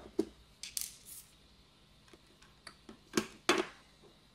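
Light clicks and knocks of a small plastic enclosure and its screws being handled and set down on the floor, with two sharper knocks a little over three seconds in.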